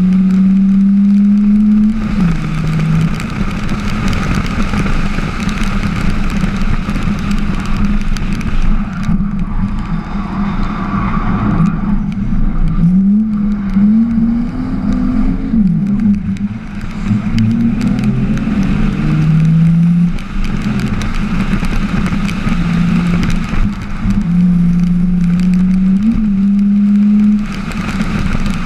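Drift car's engine heard onboard, repeatedly revving up and easing off through the corners, with a steady rush of noise over it.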